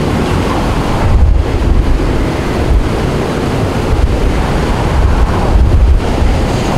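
Hurricane eyewall wind blowing hard and buffeting the microphone, in gusts that swell about a second in and again near the end.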